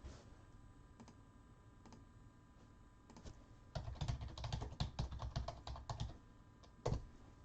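Typing on a computer keyboard: a few scattered keystrokes, then a quick run of keys lasting about two seconds, and one sharper key tap near the end.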